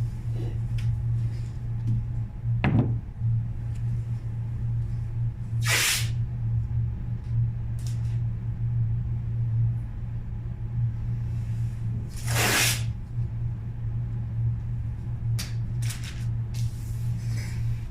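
Steady low workshop hum with two short hisses of air about six seconds apart, and a few light knocks and clicks.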